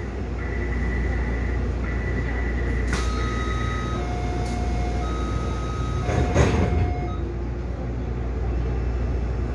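Taipei Metro C301 train standing at a station with its equipment giving a steady low hum, while a sequence of electronic chime tones plays: a steady high tone twice, then lower tones alternating at two pitches. A couple of short knocks come about three seconds in and again past the middle.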